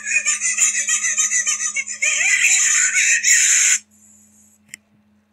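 High-pitched, shrieking laughter in rapid pulses, growing louder about two seconds in and cutting off abruptly near four seconds. A single sharp click follows.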